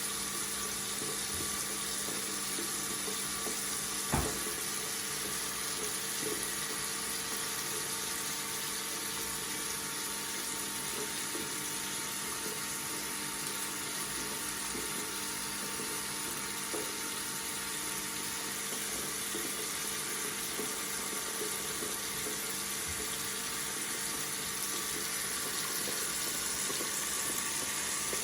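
Water running steadily from a faucet into a sink, with a single sharp knock about four seconds in.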